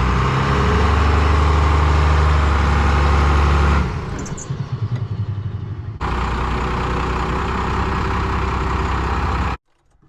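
The 1997 Dodge Ram's 5.9 Cummins diesel engine running steadily. The sound changes abruptly about four seconds in, comes back about six seconds in, and stops suddenly near the end.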